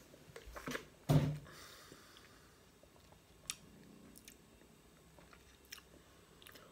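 Quiet mouth sounds after a drink of a thick nutritional shake: one louder smack about a second in, a soft breath just after it, and a few faint tongue and lip clicks later.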